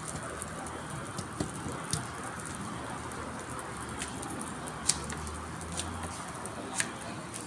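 A steady crackling hiss with a few sharp clicks; the loudest click comes about five seconds in, and another near the end.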